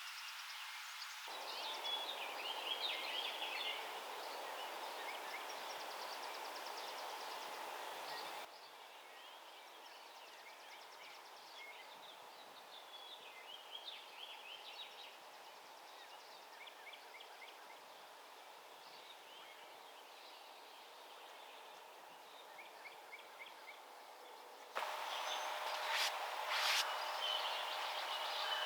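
Small birds chirping over steady outdoor background noise, with the background changing abruptly a few times. Near the end come two sharp clicks and a faint steady hum.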